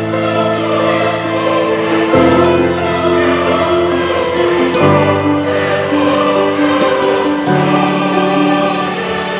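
Background music: held chords that change every two to three seconds.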